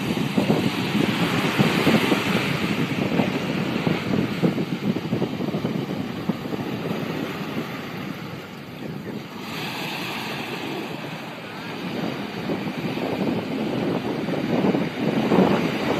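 Small waves breaking and washing up on a sandy beach, with wind on the microphone. The sound dips quieter partway through and swells again near the end.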